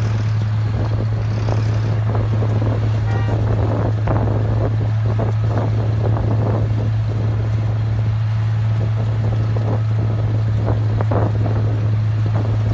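Diesel engine of an XCMG XM200KII pavement milling machine running at a steady speed, giving a strong, even low hum, with irregular rattling and grinding noise over it.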